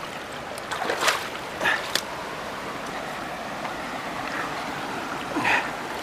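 Mountain stream rushing steadily over granite boulders in shallow rapids. A few brief, sharper sounds rise above the water, the loudest about a second in, with others near two seconds and near the end.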